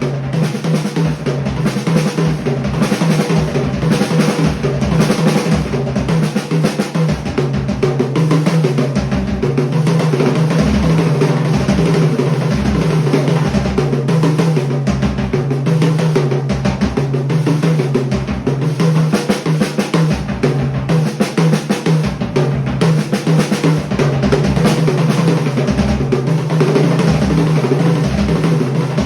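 Drum kit played continuously: dense snare and tom strokes with drum rolls over repeated bass drum hits, and a steady low hum underneath.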